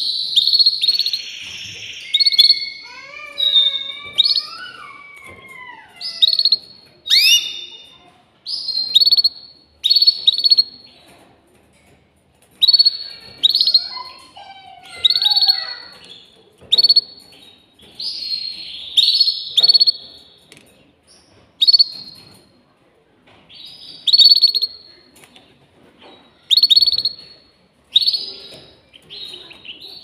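Domestic canary singing: short, bright trilled phrases repeated about once a second, with slower, lower gliding whistled notes a few seconds in and again around the middle.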